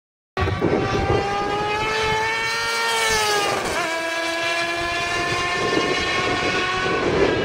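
Superbike engine running at high revs, its pitch climbing steadily and then dropping sharply once, a little past halfway, before levelling off. Near the end its note fades into a rising rush of noise.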